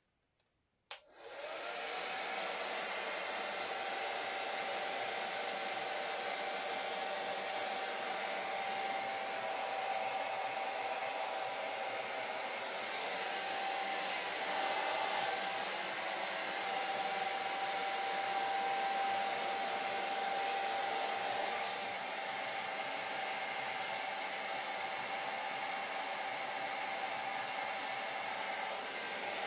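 Hair dryer switched on with a click about a second in, its motor spinning up with a rising whine, then running steadily: even blowing air with a constant motor whine.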